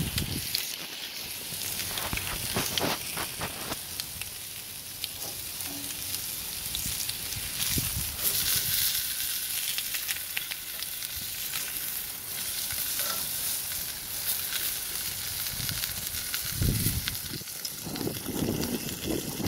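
Steaks sizzling steadily on a hot cast-iron grill pan over a gas grill, with a few sharp clicks of metal tongs against the meat and pan. A low rumble comes in near the end.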